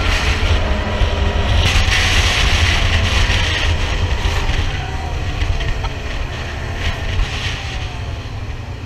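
Engine of a track-equipped Can-Am quad running steadily at road speed, with wind buffeting the microphone. The sound eases off gradually toward the end.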